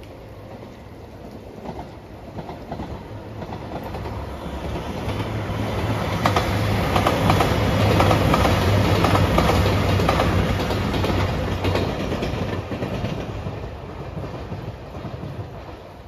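A four-car JR Shikoku 2700 series diesel limited express train passes by. Its engine hum and the clatter of its wheels over the rail joints build to a peak about halfway through, then fade as it moves off.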